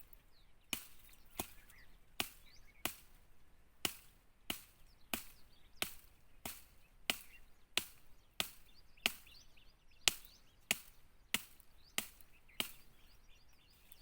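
Steady chopping with a hand-held cutting tool into a plant at its roots: about twenty sharp strikes, roughly three every two seconds.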